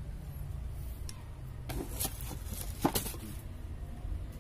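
A few light clicks and taps from handling an oiled piston with its rings, the loudest about three seconds in, over a low steady rumble.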